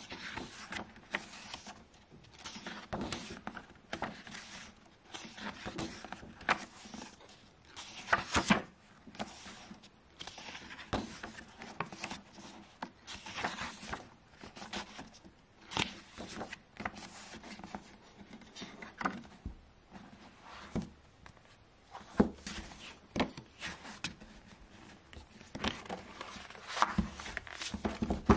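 Paper pages of a softcover art book being turned by hand: irregular rustling swishes, about one a second.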